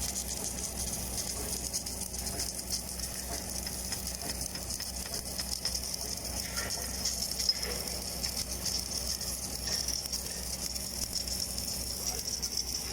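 Lincoln LT-7 tractor doing submerged arc welding: a steady crackling sizzle from the arc burning under the flux, over a steady low hum.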